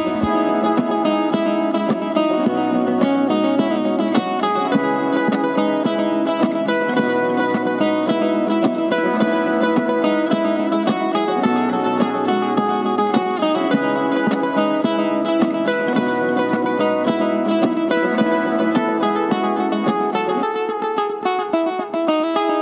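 Background instrumental music led by a plucked string instrument like a guitar, playing a busy run of short notes.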